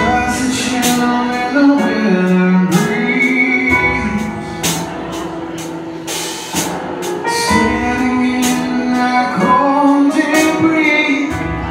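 Live rock band performance: a man singing the lead vocal over electric guitar, bass and regular cymbal hits.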